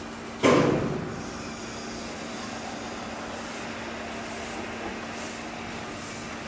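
A steady low hum with one sudden loud knock about half a second in that dies away over about half a second.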